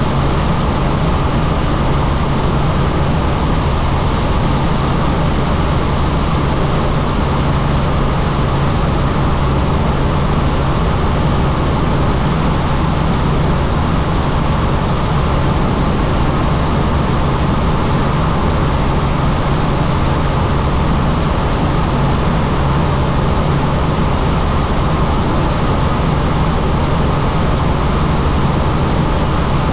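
Helicopter in flight: loud, steady engine and rotor noise with a constant low drone that does not change.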